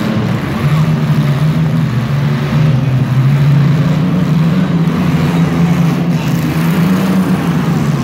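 Compact demolition derby cars' engines running and revving loudly, a continuous drone whose pitch shifts up and down a little.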